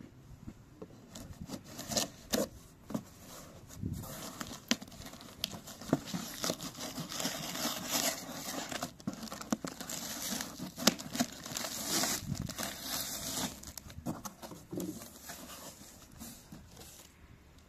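A knife slitting plastic packing tape on a cardboard box and the tape tearing, then the cardboard flaps being pulled open, with scrapes, rustles and small knocks throughout.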